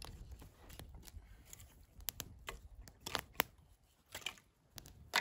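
Small campfire of dry sticks crackling, with scattered sharp pops, as more sticks are laid across it.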